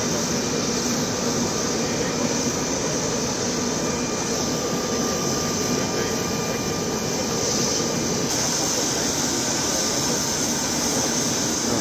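Steady jet aircraft engine noise, a continuous roar with faint high steady tones running through it.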